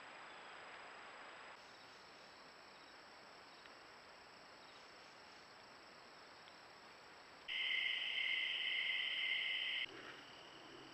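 Outdoor insect chorus of crickets trilling. It is a faint steady trill over hiss for most of the time and becomes a loud, steady, high-pitched trill for about two seconds past the middle, which starts and stops abruptly.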